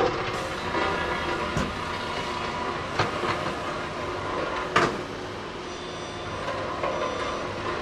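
Scania tipper truck's diesel engine running steadily as its dump body is raised. Three sharp metal knocks come about a second and a half apart; the last, just under five seconds in, is the loudest.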